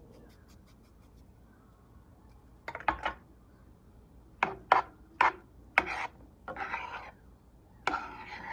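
Metal serving spoon stirring fried rice in a frying pan, scraping and clicking against the pan in a run of short strokes starting about three seconds in, the last two strokes longer.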